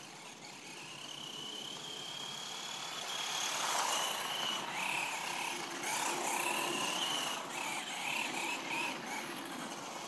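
Brushed electric motor and gears of a GPTOYS Phoenix S915 RC buggy whining as it drives over asphalt, with tyre noise. The whine rises in pitch over the first few seconds, then comes in several shorter throttle bursts, loudest about four and six seconds in.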